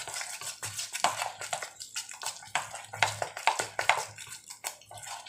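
A spoon scraping and knocking against a stainless steel bowl as thick dhokla batter is stirred, in a quick uneven run of strokes, two or three a second.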